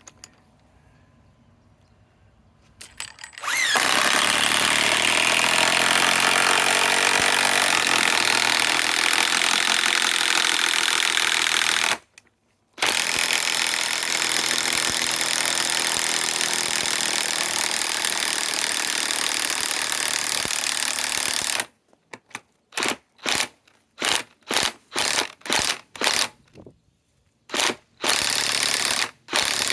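DeWalt DCF891 mid-torque cordless impact wrench hammering on a large bolt: a long continuous run, a brief pause, a second long run, then a string of short trigger bursts near the end.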